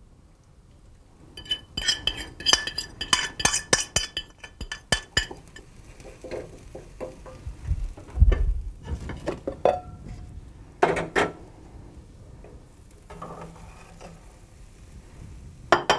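A run of ringing clinks of a utensil on cookware, then a wooden spatula stirring and scraping beaten eggs in a non-stick frying pan, with scattered knocks and one sharper knock about eleven seconds in.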